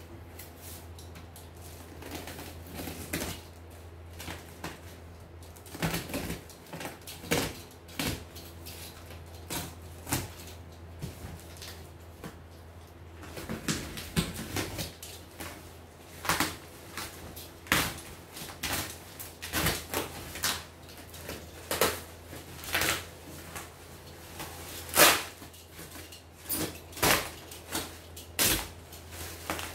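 Plastic parcel wrapping and packing tape being cut and torn open by hand, with irregular crinkling, snipping and ripping that grows busier and louder about halfway through, over a steady low hum.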